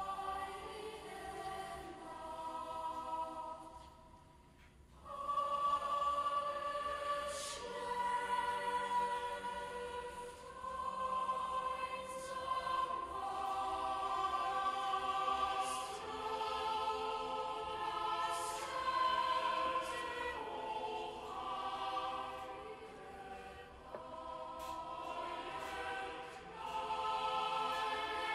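Background music: a choir singing a slow piece in long held chords. It fades about four seconds in and comes back fuller just after.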